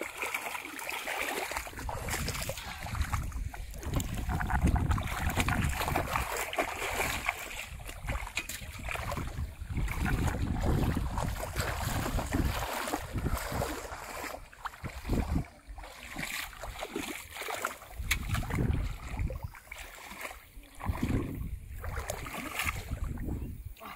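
Shallow paddy-field water splashing and sloshing as hands grope through it, then feet wading through it. The sound comes in uneven surges, with wind buffeting the microphone.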